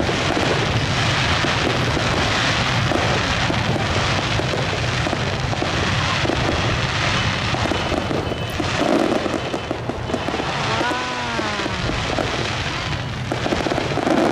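Fireworks crackling and bursting without pause, with stronger bursts about nine seconds in and near the end. A short pitched sound rises and falls away about eleven seconds in.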